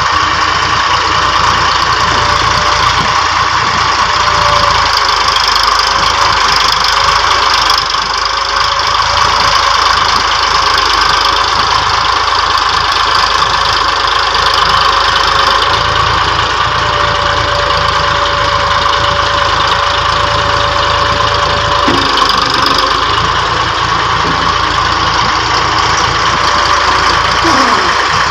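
Massey Ferguson 260 tractor's three-cylinder diesel engine running steadily while it powers the mounted excavator arm digging sand. A faint high whine wavers over the engine and stops about 22 seconds in.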